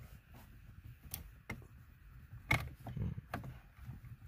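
Scattered sharp clicks and knocks of plastic dashboard trim being handled and pried at, with the loudest knock about two and a half seconds in; the panel is still held tight by its clips.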